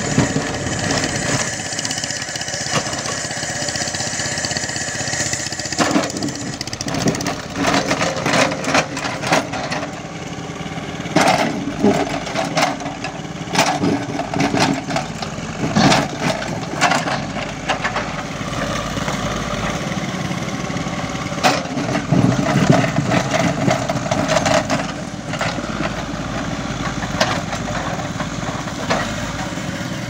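Cat backhoe loader's diesel engine running under working load as the backhoe bucket digs and drags through earth, with a high whine over the first several seconds and a series of sharp clanks and knocks from the bucket and soil through the middle stretch.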